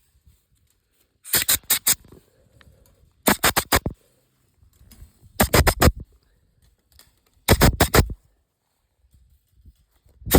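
Wire clips being snapped onto fence wires with a fencing clip tool: quick bursts of three or four sharp clicks, a burst about every two seconds.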